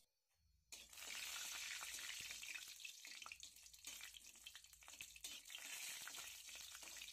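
Hot oil sizzling and crackling in a kadai as bay leaves, dried red chilli and whole spices fry for a curry's tempering, with a spatula stirring them. The sizzle starts suddenly about a second in.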